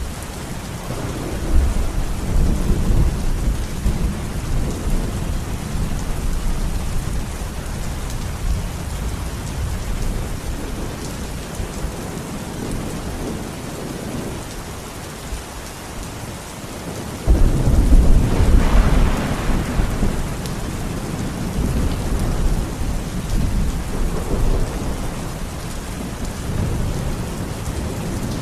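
Steady rain falling, with low rolling rumbles of thunder. The loudest rumble breaks suddenly a little past the halfway point and dies away over several seconds.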